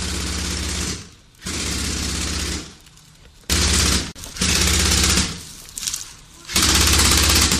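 A gun firing full-automatic bursts very close by, five bursts of about a second each, with short gaps between them and two of them nearly back to back in the middle.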